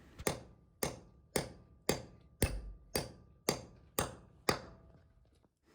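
A hammer striking a half-inch steel bolt into a hole drilled in concrete: about nine even blows, roughly two a second, with a faint metallic ring between them.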